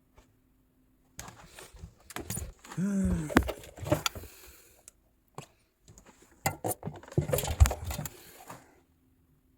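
Rattling, clattering handling noises in two spells of a few seconds each, with sharp knocks among them.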